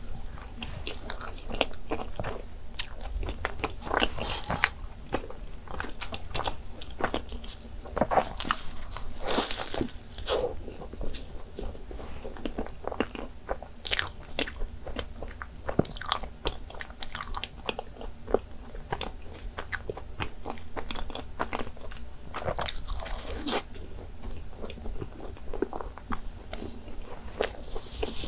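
Close-miked eating: biting into and chewing soft cream-filled pastries, with many small sharp mouth clicks and smacks.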